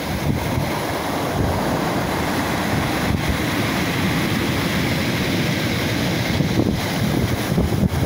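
Rough sea surf breaking and washing up a pebble beach, with wind buffeting the microphone.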